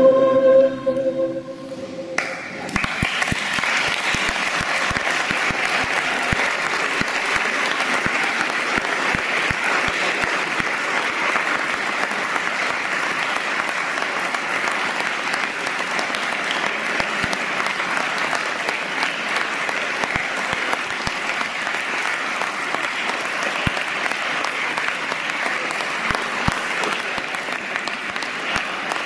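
A large massed choir holds its final chord for about two seconds, then cuts off. Applause breaks out at once and goes on steadily, with the choir members clapping too.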